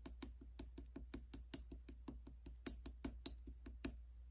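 Keyboard typing: rapid, even taps at about five a second, one louder tap partway through, stopping near the end.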